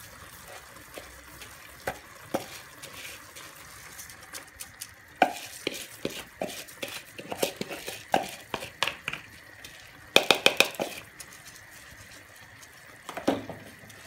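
Wooden spoon scraping and knocking against a bowl and a pot as wet, drained rice is tipped into a pot of cooked vegetables and then stirred. Scattered knocks build to a quick run of about five sharp knocks some ten seconds in, with one more near the end.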